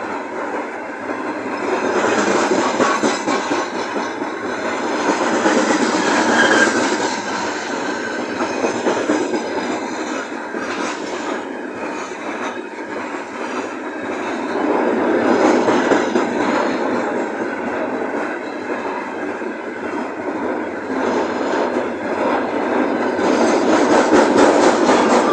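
Freight train rolling past, its wagon wheels clattering on the rails. The sound swells and eases several times.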